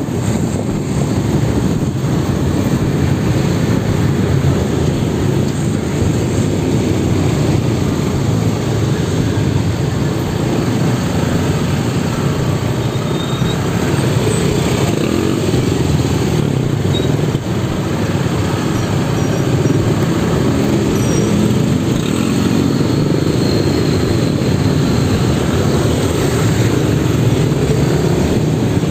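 Motorcycle engine running steadily in slow, congested road traffic, mixed with the rumble of the surrounding cars and motorcycles.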